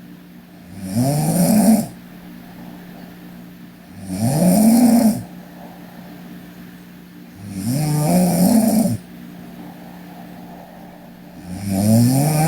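A sleeping girl snoring: four loud snores about four seconds apart, each one rising in pitch, with quieter breathing between them. A steady low hum runs underneath.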